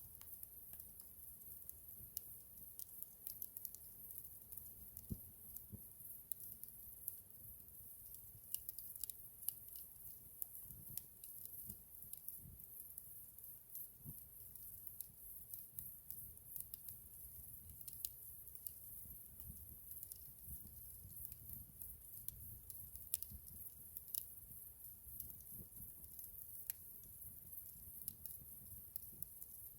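Campfire crackling faintly, with scattered irregular sharp pops and snaps over a steady high hiss.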